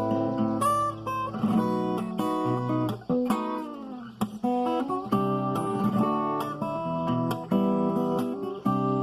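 Acoustic guitar played fingerstyle: a picked melody over bass notes and chords, with a quick downward slide in pitch about three seconds in.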